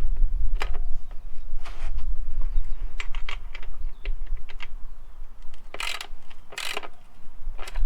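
Irregular light metallic clicks and knocks of a motorcycle drive chain and tools being handled, with two short rasping scrapes about six seconds in.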